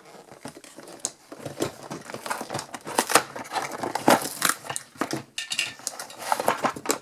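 A cardboard toy box and its plastic packaging being opened by hand: irregular crinkling and rustling with scattered sharp clicks and taps.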